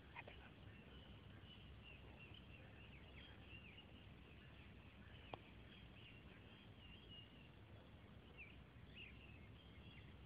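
Near silence of quiet outdoor air, with faint bird chirps scattered all through. One small sharp click about five seconds in.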